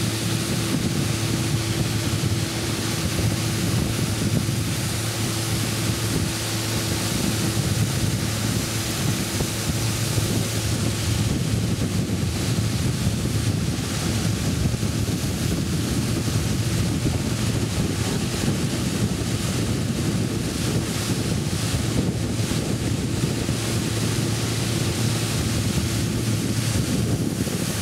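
Small motorboat's engine running steadily while under way, with water rushing past the hull and wind buffeting the microphone.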